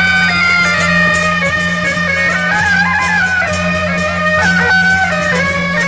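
Taiwanese temple procession music: a shrill double-reed horn (suona) plays a melody in held, stepping notes over a steady low drone, with quick metallic percussion strokes.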